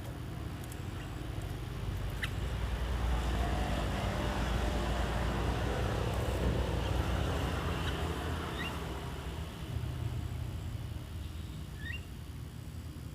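A vehicle passing by, its low rumble swelling to a peak a few seconds in and then fading away. A few short, rising bird chirps sound over it, one near the start and a couple more near the end.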